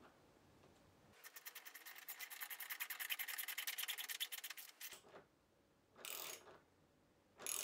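Socket ratchet clicking rapidly, about ten clicks a second for nearly four seconds, as it drives 8 mm lag screws into the workbench to fasten the face vise's front plate. Two short rasping strokes follow near the end.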